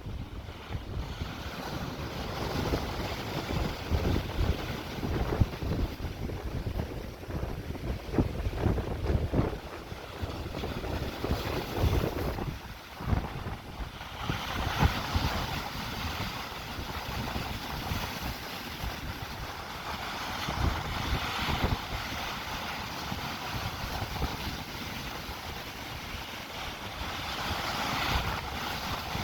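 Sea waves crashing and washing over rocks, a continuous surging hiss, with wind buffeting the microphone in low gusts that are heaviest in the first half.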